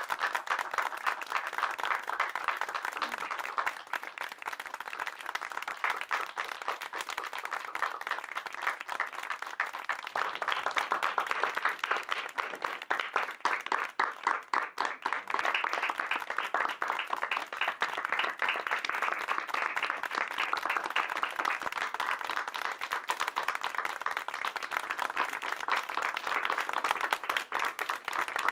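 Small audience applauding steadily, with many fast overlapping claps; the applause cuts off abruptly at the end.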